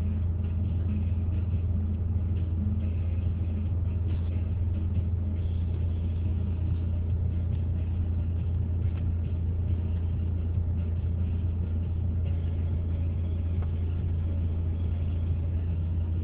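Steady low drone inside a car cabin: engine and road or cabin noise, with no change in pitch or level.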